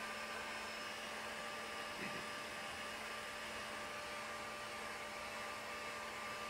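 Electric heat gun running: a steady blowing whir with a constant electrical hum.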